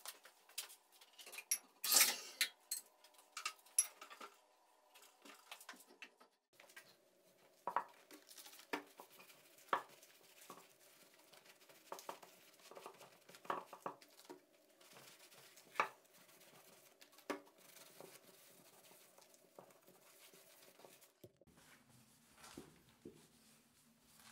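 Handling noises: scattered clicks, knocks and clinks, the loudest a knock about two seconds in, then light clicks and rubbing as a small motor's toothed timing pulley is wiped clean with a rag.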